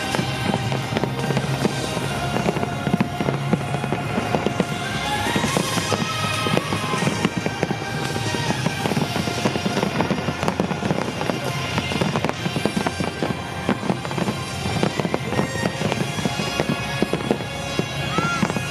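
Finale of a large aerial fireworks display: rapid, overlapping shell bursts and crackling without a break, with music playing underneath.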